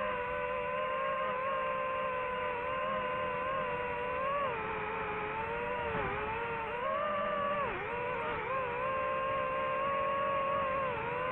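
DJI FPV drone's motors and propellers whining steadily, the pitch dipping briefly and climbing back several times as the throttle is eased and reapplied in flight.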